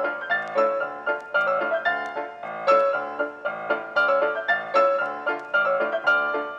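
Background music played on a piano-like keyboard instrument, a run of quick notes with sharp attacks.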